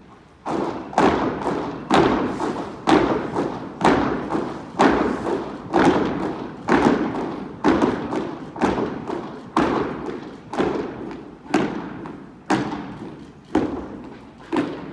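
A troop of RCMP cadets marching in step on a hard drill hall floor, their boots striking in unison with a loud beat about once a second and lighter steps between. Each stamp echoes on through the large hall.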